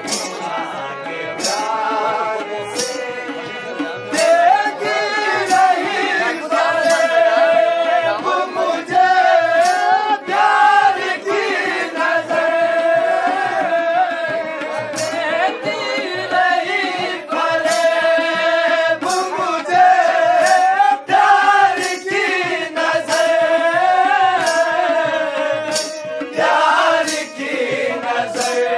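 A man singing a ghazal, his voice gliding and wavering in long phrases. Sharp claps land about every second and a half, keeping time.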